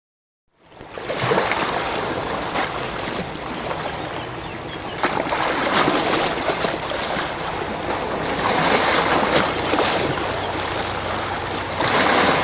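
Sea surf: a steady rush of waves that starts suddenly about half a second in and swells every few seconds as waves break.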